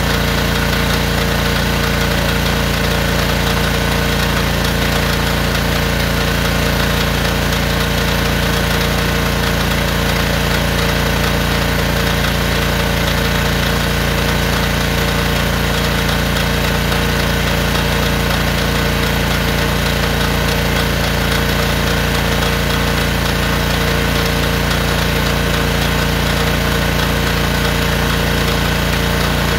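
Honda gas engine of a pressure-washer drain jetter running at a steady speed, driving the high-pressure pump that feeds the jetting hose.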